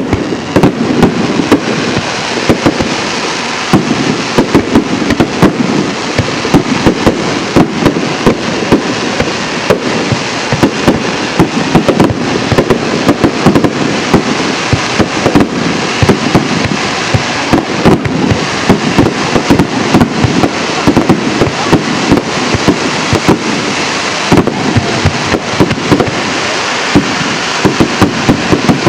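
Aerial firework shells bursting in a rapid barrage, several sharp bangs a second, their echoes running together into a continuous din.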